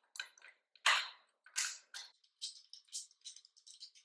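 Handling noise from fitting a plastic armrest against a gaming chair seat's fabric underside: an irregular run of short scrapes, rustles and light knocks, the loudest about a second in.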